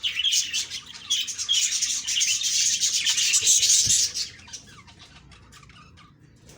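Budgerigars chirping and warbling in a rapid, dense chatter that stops about four seconds in, leaving only faint chirps.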